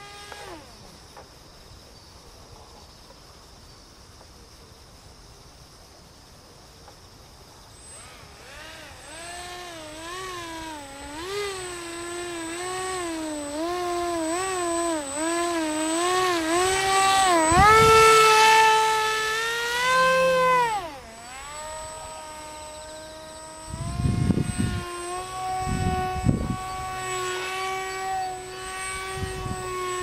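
Electric motor and propeller of a small foam delta-wing RC plane, a whining tone that is faint at first, then rises and wavers up and down with throttle changes. It is loudest and highest a little past halfway, while the plane hovers nose-up, then drops sharply in pitch and runs steady. A few low thumps come about two-thirds of the way in.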